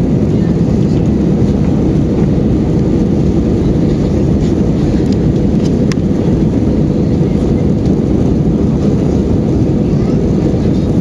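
Airbus A320-200 airliner's engines and airflow making a steady, low, unchanging rumble, with a single faint click about six seconds in.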